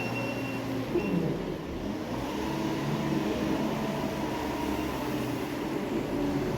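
Farm machinery engine running steadily, its pitch dipping briefly about a second in and then holding.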